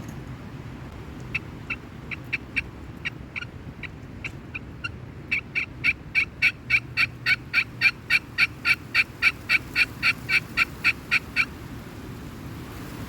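A long series of turkey yelps: scattered single notes at first, then from about five seconds in a fast, even run of about four loud yelps a second that stops near the end. A low wind rumble runs underneath.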